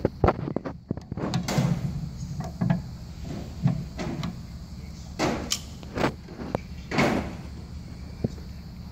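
Irregular metal knocks, clicks and short scrapes of pliers and hand tools working on a manual transmission's gears and shaft nut, a few of them sharp and loud.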